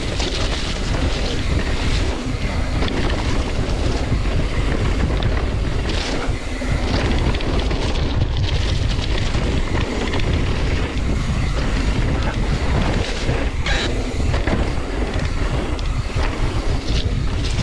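Wind buffeting a chest-mounted action camera's microphone on a mountain bike riding downhill, with a continuous rumble of tyres rolling over dirt and fallen leaves and occasional knocks and rattles from the bike.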